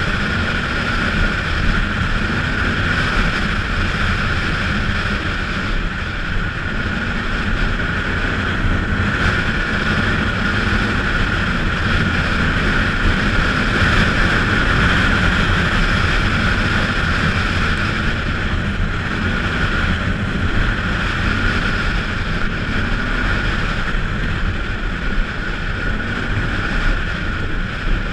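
ATV engine running under way, its pitch drifting up and down with the throttle, with wind buffeting the microphone.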